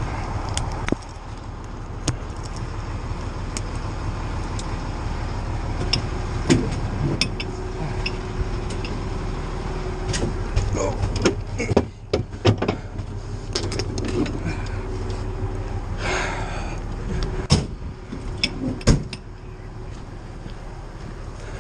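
Fire apparatus engine running steadily under frequent metallic clinks, knocks and jangles of firefighting gear and hand tools, busiest in the second half, with a short scraping rasp a few seconds before the end.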